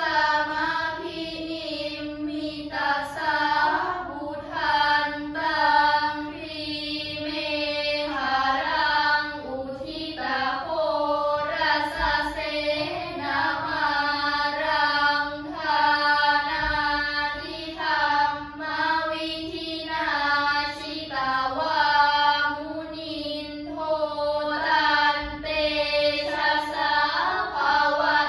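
A group of girls chanting prayers together in unison, a steady melodic chant sung syllable by syllable with brief breath pauses.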